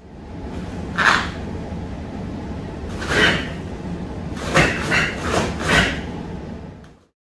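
Quick karate strikes and blocks swishing, with the cotton karate uniform snapping: one sharp swish about a second in, another near three seconds, then four in quick succession. A steady low hum runs underneath and cuts off just before the end.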